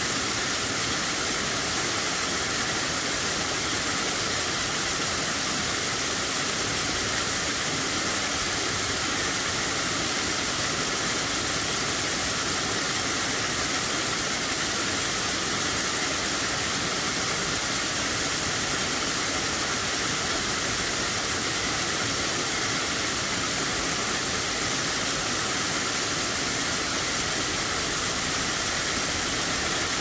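Mountain stream cascading over boulders into a shallow pool: a steady, bright rush of falling water.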